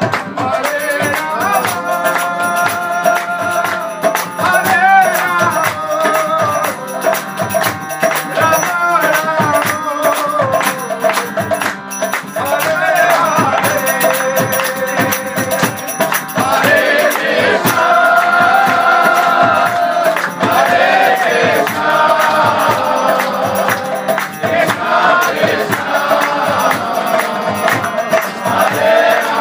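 Kirtan: a man sings a devotional chant while playing a harmonium, its reedy held chords under the voice, with other voices joining in and hand percussion keeping a quick, steady beat.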